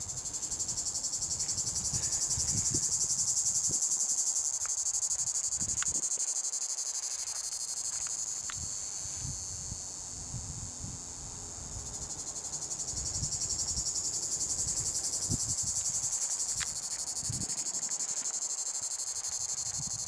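Male Tibicen plebejus (Lyristes plebejus) cicada singing a continuous, fast-pulsing buzz, swelling louder twice and easing off in between. It is an old male late in the season, whose sound-producing membranes the recordist hears as worn.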